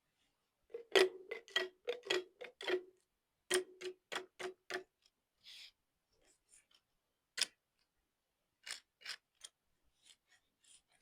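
Glass clinking: about a dozen sharp taps, each with a brief ring, in two quick runs, then scattered lighter clicks.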